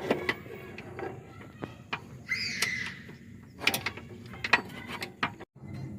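Hand tools clicking and clinking on metal, with the clicks of a ratchet wrench, while a new belt tensioner is bolted onto a Toyota Camry's 2AZ-FE engine. There is a brief scrape about two seconds in, and the sound breaks off abruptly near the end.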